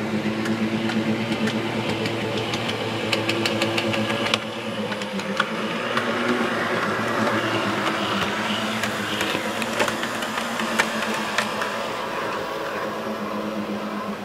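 OO-gauge Realtrack Class 143 Pacer model train running on the track: its small electric motor hums steadily and the wheels click now and then over the rail joints.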